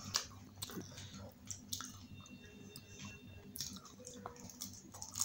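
Close-miked eating of pani puri: chewing and biting, with a run of sharp clicks, the loudest just after the start and again at the end.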